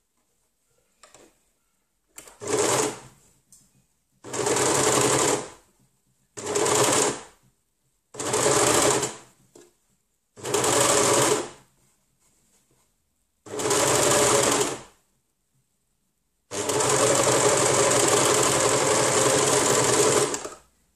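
Overlocker (serger) stitching a curved sleeve seam in stop-start runs: six short runs of about a second each, then one steady run of about four seconds near the end.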